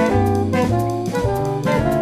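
Jazz quintet recording: saxophone and horn playing melody notes over bass and a drum kit with frequent cymbal and drum strokes.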